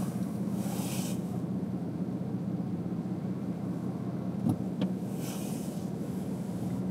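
A car driving, heard as a steady low road-and-engine hum, with a few brief hissing swells and two small knocks about four and a half seconds in.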